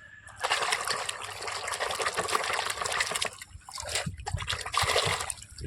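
Water gushing and splashing over a toy vehicle as it is washed. It starts about half a second in, runs steadily for about three seconds, then comes in a few shorter gushes.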